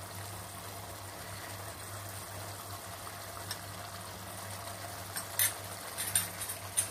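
A steady low hum with a faint even hiss, with a few sharp clinks of steel utensils in the last couple of seconds.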